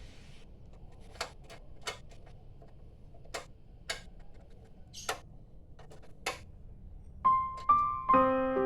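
Background music in a lull between passages: quiet, with scattered sharp clicks, then electric piano notes come in near the end.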